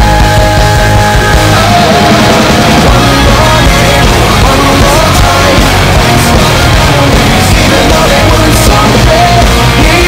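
Loud rock music with a singer, playing steadily.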